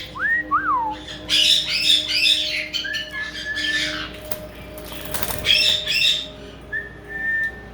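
Caique parrot whistling and squawking: two quick rising-and-falling whistles at the start, two bursts of harsh chatter, and two short held whistle notes.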